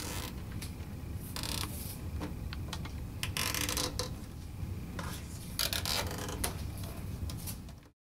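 Nylon zip ties being ratcheted tight around bundled cables: several short rasping pulls among handling noise. The sound cuts off abruptly near the end.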